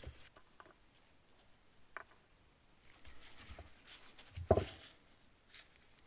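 Faint, irregular clicks and small knocks from the float rattling loose inside a Carter BB1 one-barrel updraft carburetor as it is moved about, with one louder knock about four and a half seconds in.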